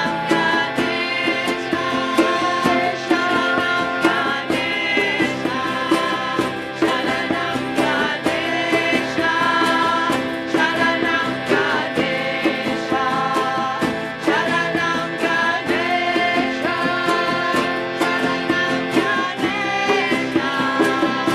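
Live acoustic music with plucked string instruments and a voice singing over a steady accompaniment.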